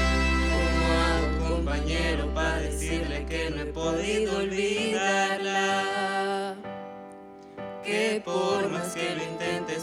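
Symphonic wind band playing a vallenato song arrangement, with sustained chords over a held low bass note that fades away midway. The music thins to a brief quiet passage around seven seconds, then the full band comes back in.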